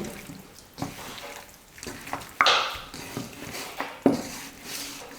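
Raw chicken pieces being mixed with masala paste and a splash of water in a bowl: soft wet squelches and a few light knocks against the bowl, with a short hissy splash about two and a half seconds in.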